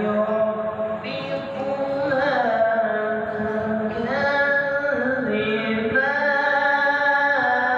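A man reciting the Quran in melodic tilawat style, in long held notes that glide from one pitch to another, with the longest note held near the end.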